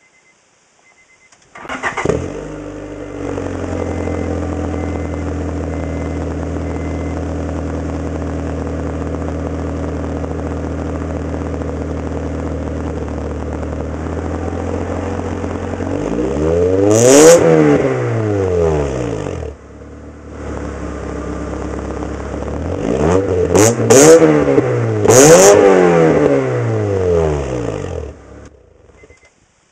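Car engine breathing through an aftermarket N1-style cat-back exhaust: it is started about two seconds in and idles steadily, is revved once, pitch rising and falling, then revved about three more times in quick succession before shutting off near the end. The owner calls its tone deeper than he expected.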